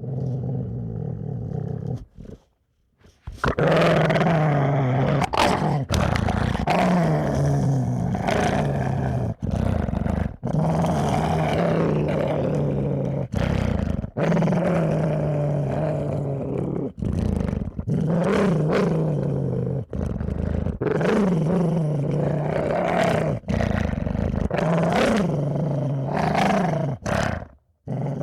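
A dog growling viciously: a run of long, deep growls, each a second or two, broken only by short pauses for breath. It starts softer, stops briefly about two to three seconds in, then goes on louder.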